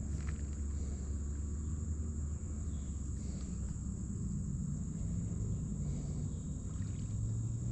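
Steady, high-pitched insect chirring, such as crickets, over a continuous low rumble.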